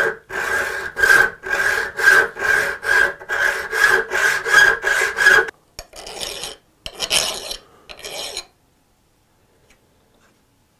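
Hand saw cutting with quick back-and-forth strokes, about two a second, the blade or workpiece ringing with each stroke. After a brief break comes a short last run of strokes, and then it stops as the cut is finished.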